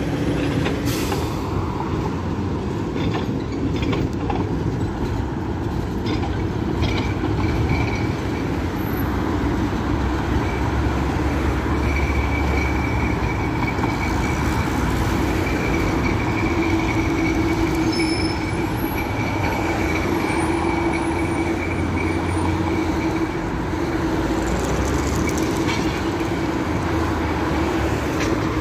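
LVS-86K tram running on its rails with a steady rumble. A high, steady wheel squeal rises over it for much of the middle stretch.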